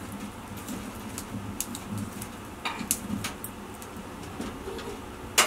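Wood fire burning in a small cast-iron wood stove with its door open: a low fluttering murmur with scattered crackles and light metal clicks, and a sharper click near the end.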